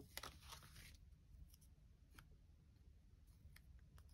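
Near silence with faint, scattered clicks and light rustling of paper sticker sheets being handled.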